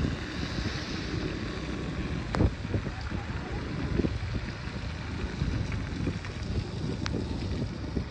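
Wind buffeting the microphone on a moving motorbike, a steady rumble with a few sharp knocks, about two and a half seconds and seven seconds in.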